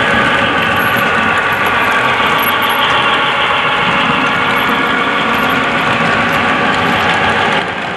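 Model freight train running past behind two diesel locomotives: a steady mechanical running noise with a whine, dipping slightly in level near the end.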